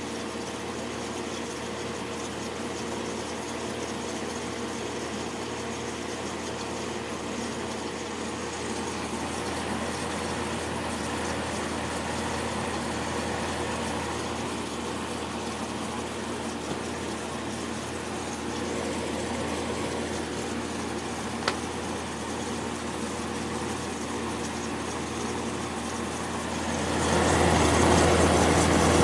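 Magic Chef dehumidifier running, its compressor humming steadily under a hiss of refrigerant flowing. The sound gets noticeably louder about 27 seconds in. This compressor is short-cycling, shutting off every couple of minutes and restarting after its protection delay.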